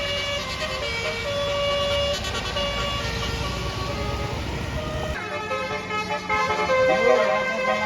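Basuri multi-note bus horn ("telolet") playing a tune of held, changing notes over the bus engine's low running. About five seconds in the engine sound drops away and the tune shifts, with short gliding whoops near the end.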